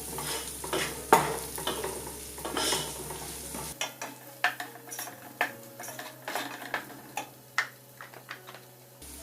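A spoon stirring onions, garlic and spice powders frying in oil in a pan, scraping and knocking against the pan at irregular moments over a light sizzle. The knocks are louder in the first few seconds and sparser and softer later.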